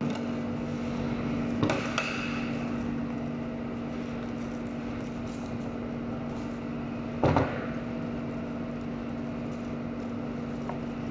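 Steady mechanical hum of cutting-room machinery, with two sharp knocks, one a little under two seconds in and one about seven seconds in, as a beef rib section is handled on a wooden cutting board.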